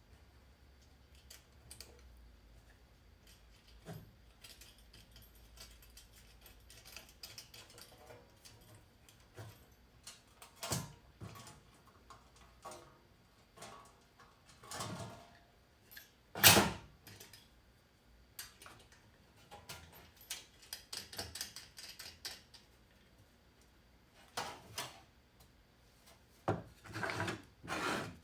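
Scattered clinks, rattles and knocks of tools and small metal hardware being handled, with quiet gaps between them and one louder knock about sixteen seconds in.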